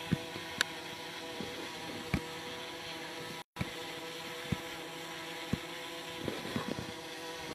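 DJI Mavic Mini's propellers hovering steadily, a buzzing hum made of several steady tones, with a few short sharp clicks. The sound cuts out completely for a moment about three and a half seconds in.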